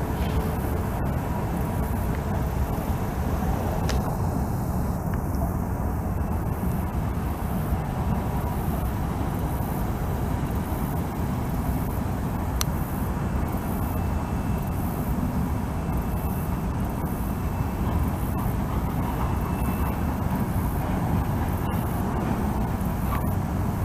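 A passing train: a steady, unbroken deep rumble.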